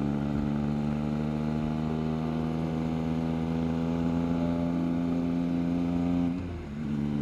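Triumph Trident 660's inline three-cylinder engine running under way, its pitch rising slowly as the bike gathers speed. About six seconds in, the level and pitch briefly dip, then the engine runs on steadily.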